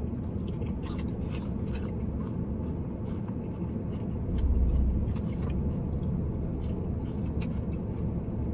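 Steady low rumble inside a parked car, with scattered small clicks and scrapes of someone eating a takeout meal. A louder low swell comes about four and a half seconds in.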